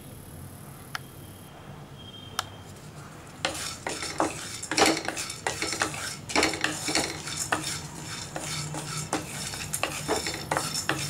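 Wooden spatula stirring watermelon seeds as they dry-roast in a non-stick pan. The seeds rattle and scrape in a dense, uneven run of clicks that starts about three and a half seconds in, after two single light knocks.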